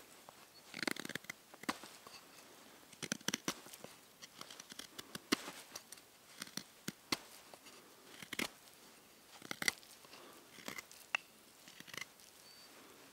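Knife blade shaving and whittling the tip of a wooden stick: short, crisp scraping strokes that come in irregular clusters about every second or two.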